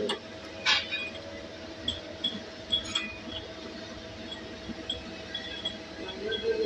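CNC machine boring with a U-drill, running with a steady multi-tone hum and scattered metallic clinks. One sharp click comes under a second in and another about three seconds in.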